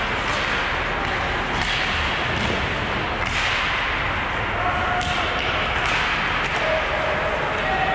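Ice hockey in an arena: skate blades scraping the ice and sticks clacking, over a steady hall noise. Several sharp scrapes stand out, the strongest a little after three seconds.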